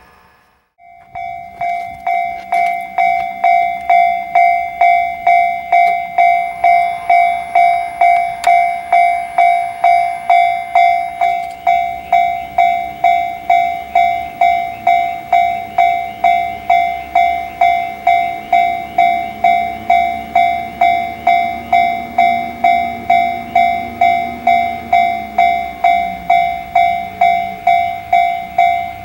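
Japanese railroad crossing warning bell ringing in a steady repeating electronic ding, a little under two strikes a second, starting about a second in. The low rumble of an approaching train builds underneath in the second half.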